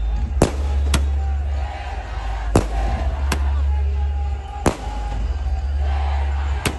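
Firecrackers going off one at a time: six sharp bangs at irregular intervals over the noise of a large crowd.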